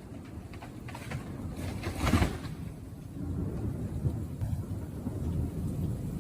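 Thunder rumbling low after a nearby lightning strike, with a sharper, louder crack about two seconds in.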